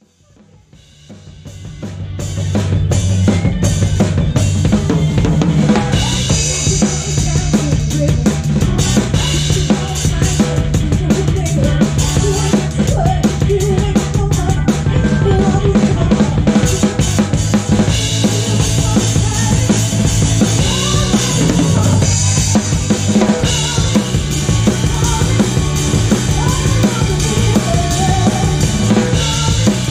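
Drum kit played with sticks, kick, snare and cymbals, driving a live show band with a bass line beneath. The sound fades up from silence over the first two seconds or so, then the band plays on at full level.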